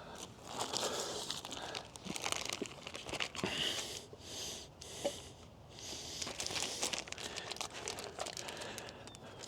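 Packaging crinkling and rustling as it is handled, with scattered small clicks and knocks.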